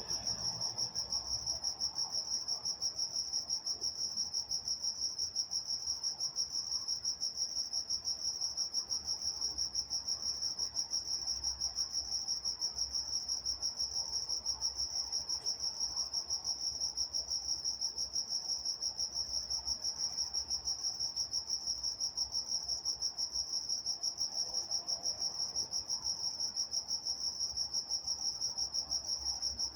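Crickets chirping, a steady high-pitched chorus with an even, rapid pulsing rhythm that never lets up.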